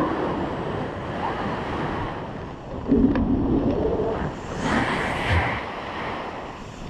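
Airflow buffeting an action camera's microphone in flight: a rushing, gusting wind noise that swells and falls.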